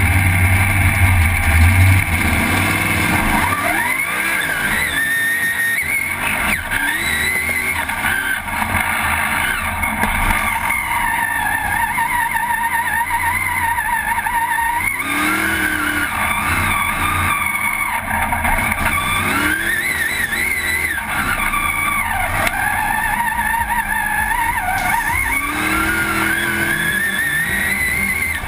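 Race truck's engine revving hard, its pitch climbing and dropping again and again as the throttle is opened and let off, heard from inside the open cab.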